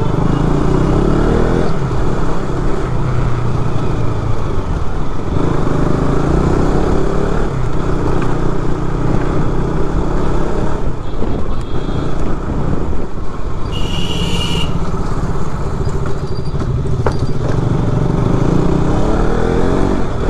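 KTM RC 200's single-cylinder engine running as the bike is ridden at low speed, its pitch rising and falling several times as it speeds up and eases off. A horn beeps once for about a second, a little past the middle.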